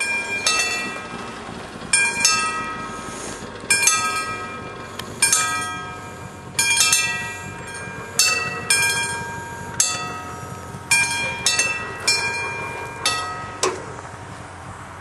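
Level-crossing warning bell ringing as the barriers are lowered: a mechanical bell struck irregularly, about once or twice a second, each strike ringing on and fading. The ringing stops near the end, leaving only a steady background noise.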